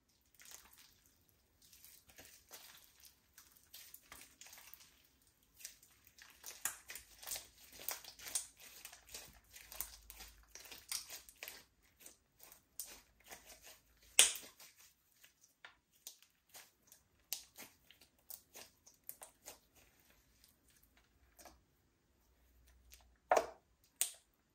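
Slime being squished and folded by hand, a run of small crackles and clicks that are densest in the middle, with one sharper pop a little past halfway and two more near the end.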